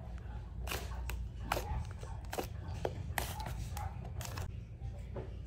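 Fluffy purple slime mixed with soft clay being pressed and kneaded by fingers, giving irregular soft clicks and pops, about a dozen, over a steady low hum.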